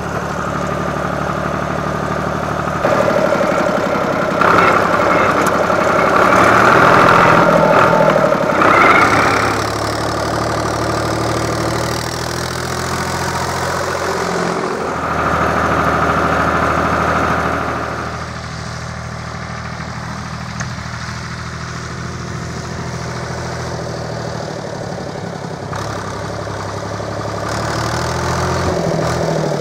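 IHC 633 tractor's diesel engine running under load while pulling a trailer, its note and loudness shifting several times: louder from about three seconds in and again around fifteen seconds, quieter from about eighteen seconds on.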